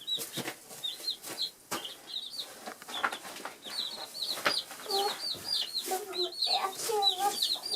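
Two-day-old chicks peeping: a steady run of short, high, curved chirps, several a second, with scattered sharp taps between them.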